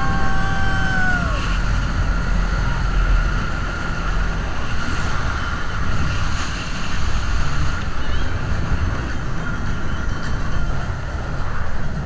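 Speedboat running at speed, its engine noise mixed with wind buffeting the microphone and water rushing against the hull. A long held shout from a rider trails off about a second in.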